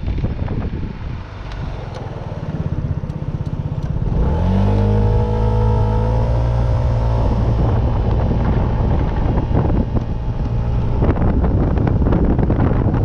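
A motor vehicle's engine under way, its note rising about four seconds in as it accelerates and then holding steady for a few seconds, over a constant rushing noise.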